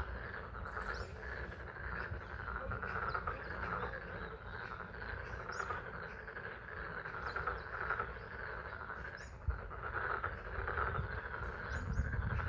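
A chorus of frogs calling continuously at a pond in the spring rain, with short high bird chirps now and then. A low rumble comes up near the end.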